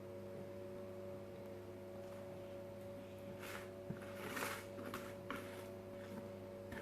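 Steady electrical hum made of several fixed tones, with a few soft rustles between about three and a half and five and a half seconds in as the remaining spices are sprinkled over the quail.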